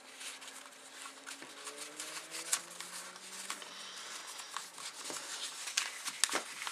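A sheet of printer paper being rolled and creased by hand on a wooden desk: rustling and crinkling with sharp crackles, the loudest about two and a half seconds in and near the end.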